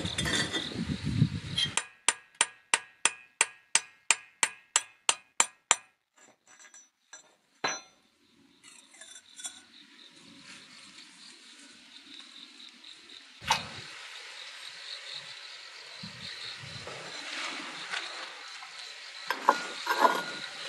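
A hammer tapping hard fired ceramic in a quick even series of about a dozen strikes, roughly three a second, each with a short ring. Afterwards crickets chirp faintly, with one sharp knock and a few light clinks near the end.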